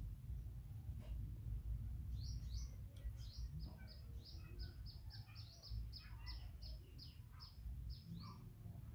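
A bird chirping over and over: a quick run of short, high, downward chirps, about three a second, starting about two seconds in and stopping near the end, over a low rumble.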